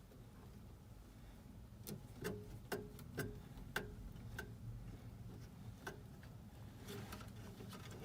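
A run of light clicks and taps, about two a second, each with a short ring, over a low steady hum.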